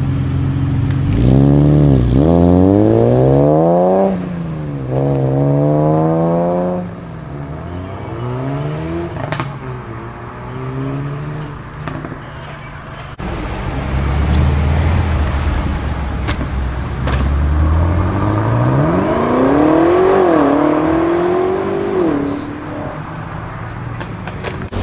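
Cars accelerating hard away, the first a BMW E36 3 Series sedan: its engine revs up steeply about a second in, drops at a gear change near four seconds and revs up again before fading. Later another car's engine builds up, revs sharply near twenty seconds and drops back.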